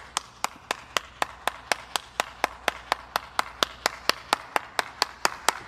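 A steady run of sharp ticks, evenly spaced at about four a second, that starts and stops abruptly.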